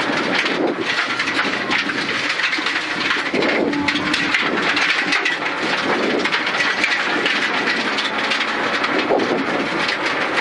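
Suzuki Ignis Sport rally car at speed on a gravel road, heard from inside the cabin: its 1.5-litre four-cylinder engine running hard, revs rising and falling several times, over steady tyre and gravel noise with many small clicks and rattles.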